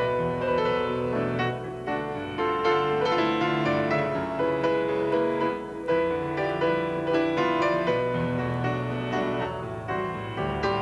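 Instrumental music carried by piano, with a run of struck, held notes.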